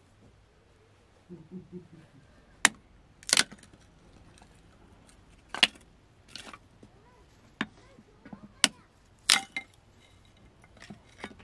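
A series of about eight sharp knocks and cracks at irregular intervals a second or so apart, some with a brief ring after them, like hard objects or wood being struck or handled during cooking.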